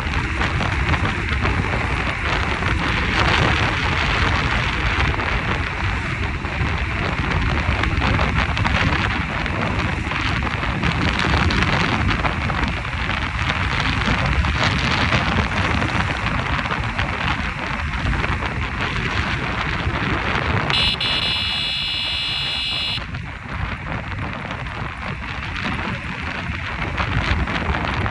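Loud, steady rushing noise, with a high buzzing tone lasting about two seconds near the end.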